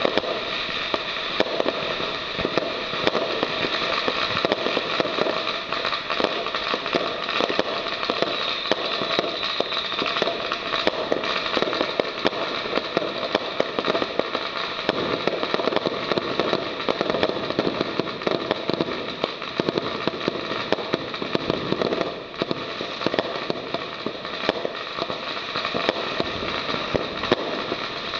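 A 111-shot consumer fireworks cake firing, a rapid, unbroken run of launch shots and aerial bursts.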